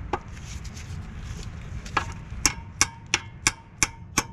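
Sharp metallic taps of a hand tool striking metal under a car's hood, starting about halfway through and going on evenly at about three a second, each with a short ring.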